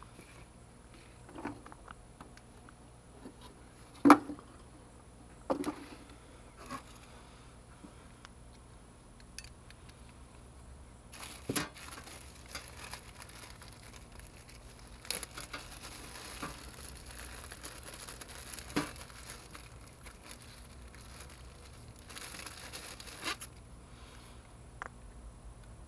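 Handling noise of a new impact drill and its accessories: several sharp knocks as parts are picked up and set down on a workbench, the loudest about four seconds in, and plastic bag crinkling twice as the side handle and depth-stop rod are taken out of it.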